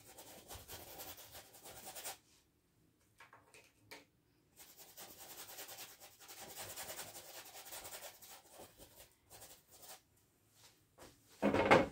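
Big paintbrush scrubbing paint onto a canvas: two longer rubbing passes and a few short strokes, with a brief louder sound near the end.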